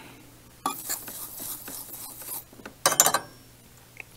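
Small tools and parts handled on a workbench: scratchy scraping and rubbing from about a second in, then a louder clatter near three seconds.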